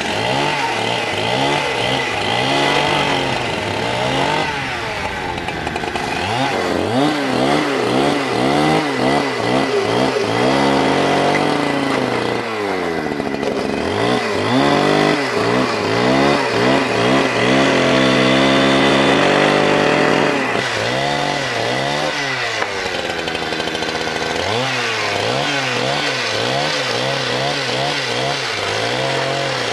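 Chainsaw engine revved up and down over and over, its pitch climbing and dropping in quick surges, settling back to a steadier lower note in between.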